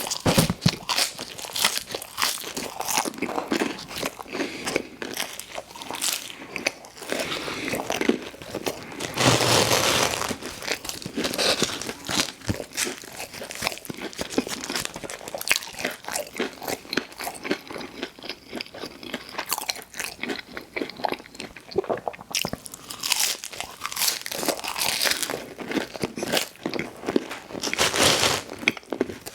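A person eating close to the microphone: crunchy bites and wet chewing with many sharp clicks, louder around a third of the way in and again near the end.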